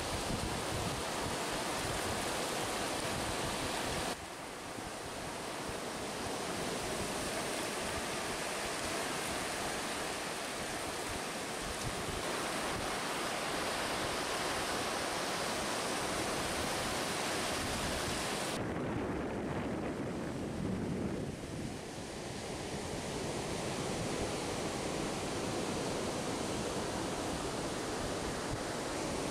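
Sea surf breaking and washing up the beach, a continuous rush of water, with wind on the microphone.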